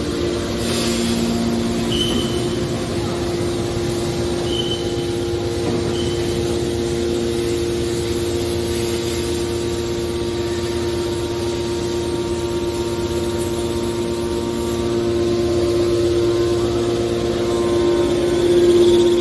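Hydraulic car body baler running: a steady machine drone with a constant hum over a rumble, swelling a little near the end. Three short high chirps come in the first few seconds.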